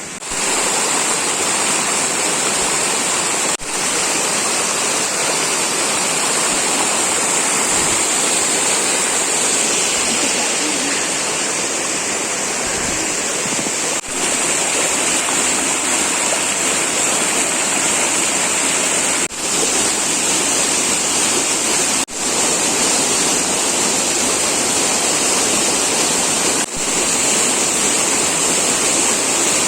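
Waterfall pouring steadily, a dense rushing water noise with a steady high hiss on top, broken by a few brief dips where the footage is cut.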